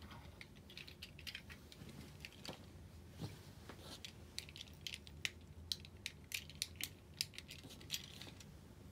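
Fidget cube being handled, its buttons and switches giving faint, sharp, irregular clicks that come thicker in the second half.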